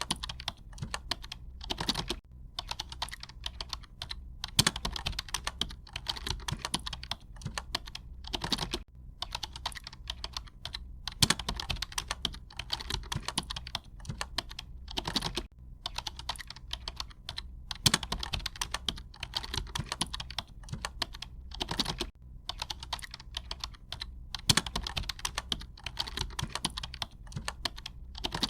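Firework crackling: a dense, rapid stream of sharp crackles with a louder pop about every six and a half seconds in a repeating pattern, over a low steady hum.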